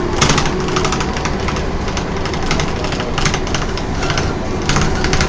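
Cabin noise inside a Volvo B10M single-deck bus on the move: steady engine and road noise with frequent rattles and clicks from the bodywork. A faint whine from the ZF gearbox trails off in the first second.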